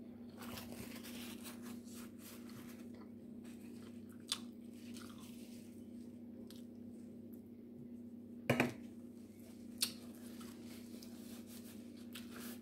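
A person chewing a mouthful of seafood boil (crab and shrimp), with soft mouth sounds, scattered clicks and a sharp knock about eight and a half seconds in, over a steady low hum.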